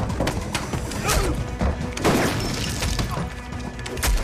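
Drama soundtrack: music under a run of sharp hits and crashes, like blows and smashing in a fight scene.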